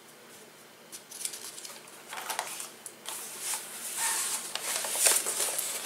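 Glossy magazine pages rustling and crackling as a page is turned and pressed flat by hand, starting about a second in and getting louder towards the end.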